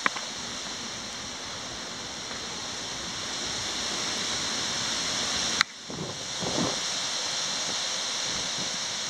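Steady outdoor hiss with a few faint high-pitched tones held through it. A sharp click comes about five and a half seconds in, followed by a short rustle.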